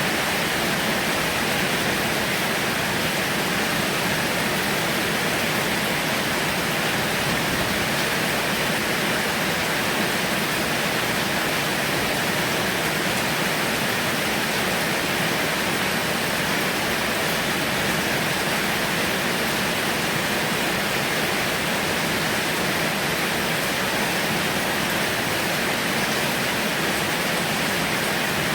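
Heavy rain pouring steadily as an even, unbroken hiss.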